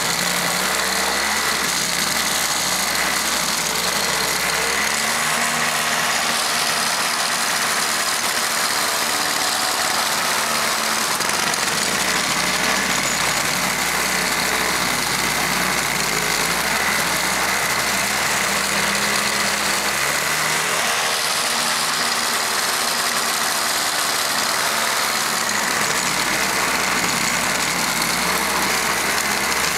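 Toro CCR 3650 snowblower's 141 cc two-stroke engine running steadily while its rubber-paddled rotor throws dense, icy snow out the chute. The engine note wavers up and down a little at times.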